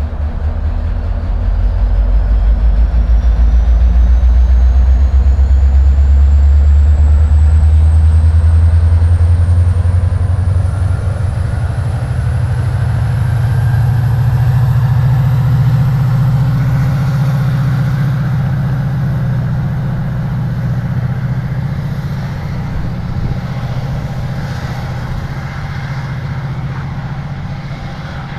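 Metra MP36PH diesel locomotive (EMD 16-645 two-stroke prime mover) throttling up as its train departs, the engine note climbing in pitch over the first dozen seconds. A thin whine rises steadily alongside it as the train gathers speed. The sound eases off as the train pulls away.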